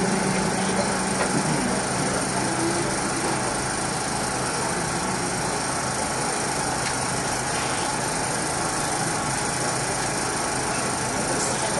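Steady, even background noise with a faint hum. No voice is heard, apart from the tail of the reciter's held note fading out right at the start.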